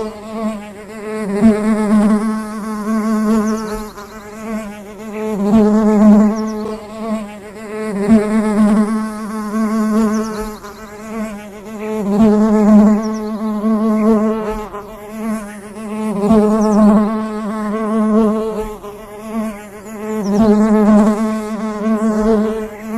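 A bee buzzing in flight, a steady wing buzz whose pitch wavers slightly and which swells and fades every few seconds.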